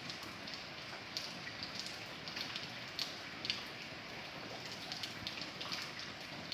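Steady rain, a continuous hiss with individual drops ticking sharply on a surface, several of them a second.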